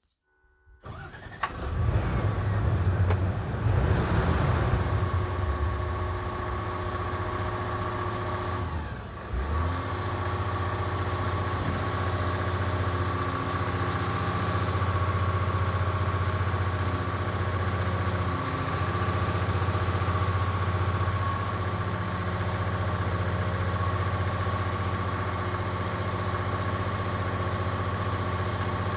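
Excavator's diesel engine starting about a second in, then running steadily with a steady high tone over it and a brief dip in level partway through.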